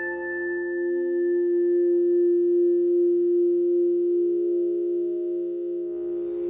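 Soundtrack music: a sustained drone of steady pure tones, like a singing bowl or a synth pad, with a soft low pulse about three times a second underneath.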